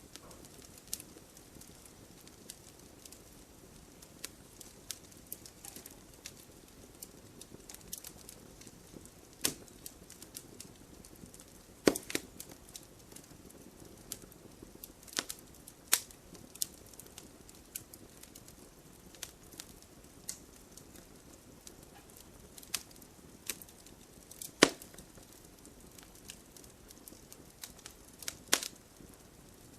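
Firewood burning with a soft steady hiss and irregular sharp crackles and pops, a few louder snaps standing out among many small ones.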